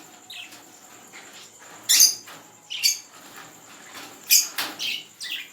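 Caged pet birds in an aviary giving short, shrill calls, about five or six times, the loudest about two seconds in and again near the end.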